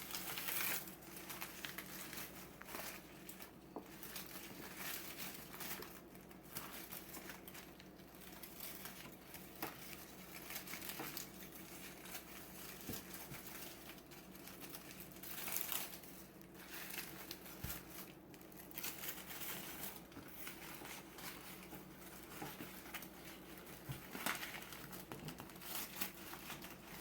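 Faint, irregular crinkling and rustling from hands-on food preparation while ears of corn are rolled in crumbled cotija cheese and items are moved about.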